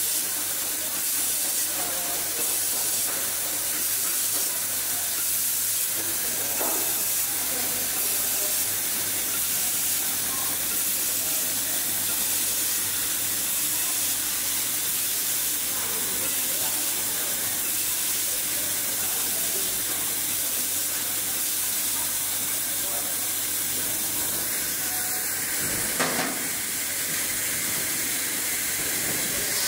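Automatic laser welding machine welding a stainless pillow-plate heat exchanger seam: a steady hiss over a constant low electrical hum. One sharp click near the end.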